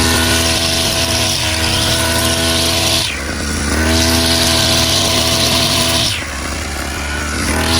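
Two-stroke brush cutter engine with a 45 mm bore, run up to high revs and let back to a lower pitch about every three seconds: the lower pitch comes about three seconds in and again about six seconds in, and the revs climb again each time.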